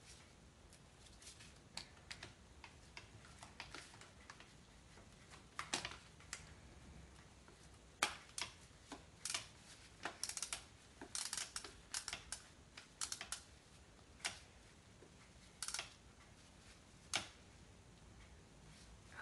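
Ratchet with a 12 mm deep socket clicking in short, irregular runs while tightening the bottom bolt of a car's distributor, with single sharper clicks in between.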